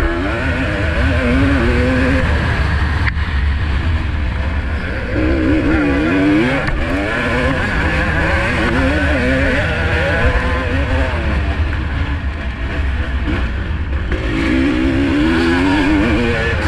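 1985 Honda CR250R single-cylinder two-stroke motocross engine racing, revving up and dropping back again and again as the throttle opens and closes and the gears change, over a steady low rumble.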